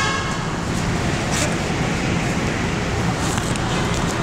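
Steady noise inside an MRT train car at a station platform, with a couple of faint clicks.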